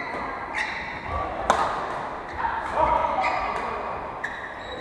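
Badminton play in a large sports hall: sharp racket strikes on the shuttlecock, the loudest about a second and a half in, with shoes squeaking briefly on the wooden court floor several times, and faint voices.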